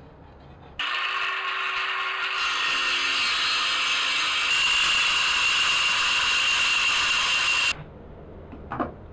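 A power tool running steadily for about seven seconds, starting and stopping abruptly, with a high whine over a loud hiss.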